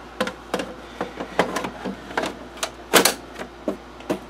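Metal case cover of an IBM NetVista slimline desktop being fitted onto the chassis: about a dozen clicks and knocks of metal on metal, the loudest about three seconds in.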